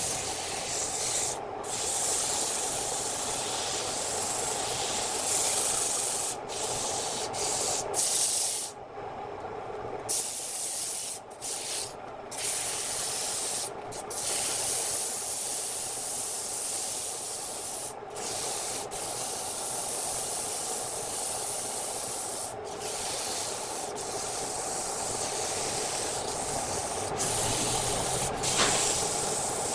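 Wood lathe running with a steady hissing scrape of a tool working the spinning wood, breaking off briefly several times.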